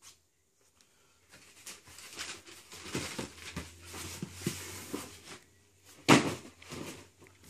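Shoe boxes and packaging being handled: rustling and small knocks, with one sharp knock about six seconds in.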